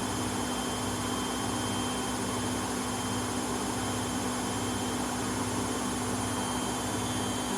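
Samsung washing machine running with a loud, steady mechanical hum over a rushing noise and a low throb, the deafening noise that is its fault.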